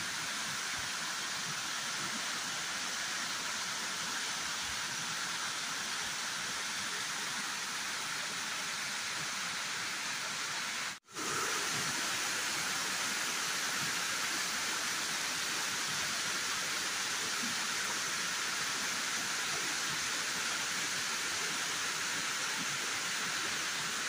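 Waterfall pouring and white water rushing over rocks, a steady hiss-like rush. The sound cuts out for a split second about eleven seconds in, then carries on unchanged.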